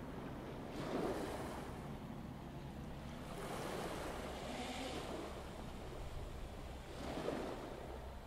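Sea waves washing in: a rushing noise that swells and fades three times over a steady low rumble.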